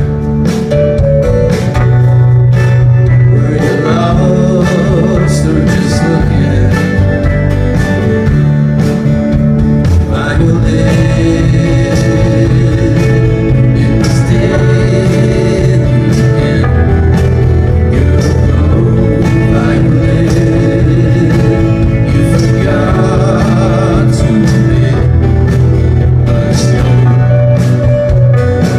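Live band playing a song: strummed acoustic guitar, electric guitar, bass and drums at a steady beat, with some singing at times.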